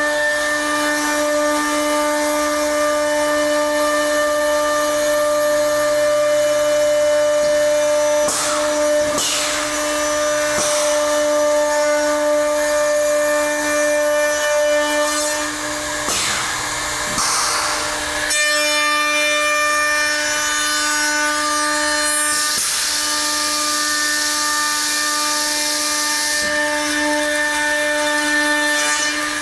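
The two 3-horsepower router motors of a CSR-700 automatic stair trencher running at high speed with a steady whine, trenching a wooden stair stringer. Several bursts of louder cutting noise come as the bits bite into the wood, the longest about four seconds near the end.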